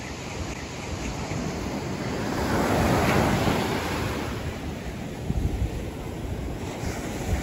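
Ocean surf breaking and washing up the beach, one wave swelling to its loudest about three seconds in and then ebbing, with gusts of wind buffeting the microphone.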